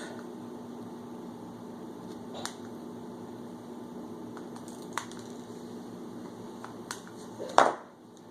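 Small wire cutters snipping off the excess leads of newly soldered display lamps: three sharp clicks a couple of seconds apart, then a louder knock near the end.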